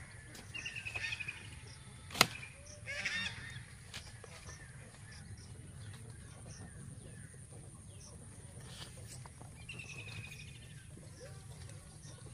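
Taro stalks being picked by hand, with one sharp snap about two seconds in. Birds call in short rapid runs in the background, about half a second in, around three seconds in, and again near ten seconds.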